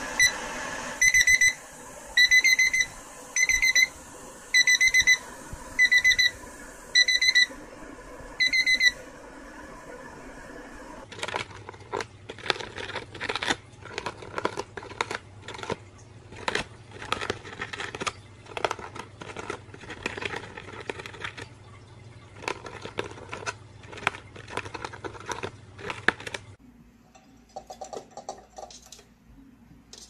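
Eight short, pure electronic-style beeps, about one a second, like an alarm clock, in the first nine seconds. Then a small green parrot chewing and tearing at the edge of a paper notebook page: a long run of rapid, irregular crunching clicks.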